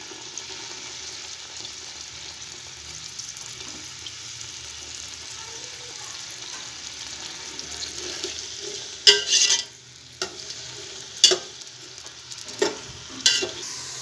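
Sliced onions sizzling steadily in hot oil in a metal pot. From about nine seconds in, a series of sharp knocks and scrapes of a utensil against the pot as the onions are stirred.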